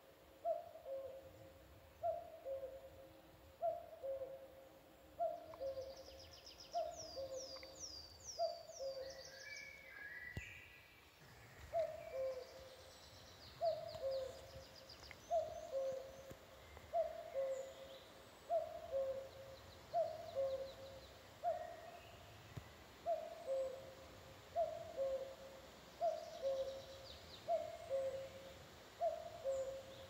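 Common cuckoo calling close by, a steady run of two-note "cu-ckoo" calls with the second note lower, broken once by a short pause. Smaller songbirds sing fainter high trills and chirps behind it, mostly in the first third.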